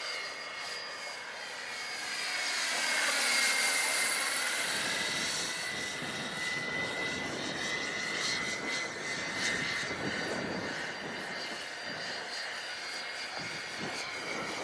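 Electric scale model Eurocopter EC-135 helicopter in flight: a steady high whine from its electric drive over the rushing of its rotor. It grows louder about three to four seconds in, where the whine dips in pitch and comes back up.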